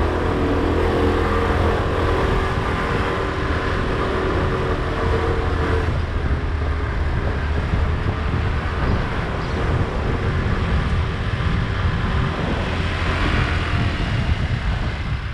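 Motor scooter engine running as it rides along, with a steady hum clearest in the first few seconds, under the rumble of wind on the microphone.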